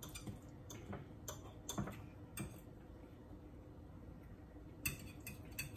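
Faint, irregular clicks of a metal fork against a plate as a serving of stir-fry noodles is stirred and twirled, with a quicker run of clicks near the end.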